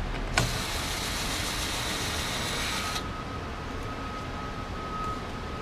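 Handheld power driver running for about two and a half seconds as it backs out an Allen screw from the dust extractor's engine cover: a click as it starts, then a steady hiss with a whine in it that cuts off sharply. A faint, steady high tone carries on afterwards.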